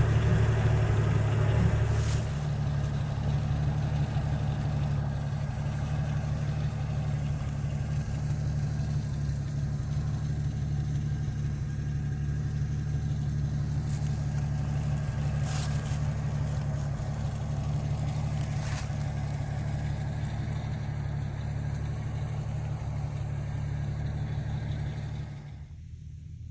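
A Jeep's engine idling steadily, a low even hum. It drops away abruptly near the end, leaving a fainter low hum.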